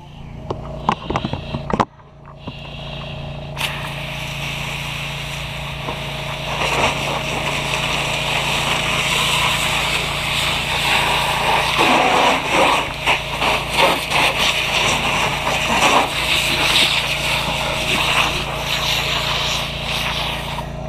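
Fire hose nozzle spraying water onto a burning car: after a few knocks, a loud hiss starts abruptly a few seconds in and grows stronger, with irregular spattering as the water hits the hot car and turns to steam. A steady engine hum runs underneath.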